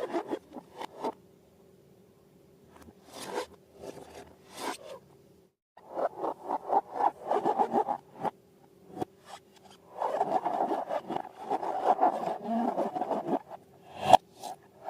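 Slime being squeezed and worked by hand, crackly, squelching clicks in bursts of one to three seconds with short pauses between.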